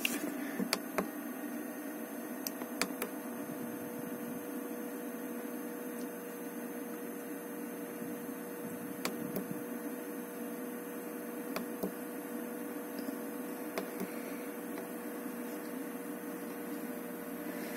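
Chinese-made diesel air heater of the Webasto type starting up: a steady hum from its blower running, with a few faint clicks scattered through.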